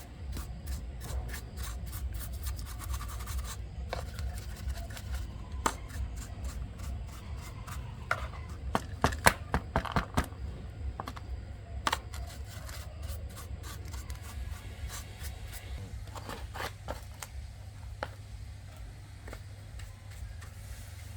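Hand work on machine parts: irregular scraping, rubbing and sharp clicks and taps of tools and metal parts, busiest about halfway through, over a steady low hum.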